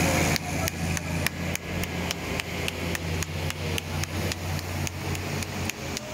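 A run of sharp, evenly spaced knocks, about three a second, over a steady low mechanical hum.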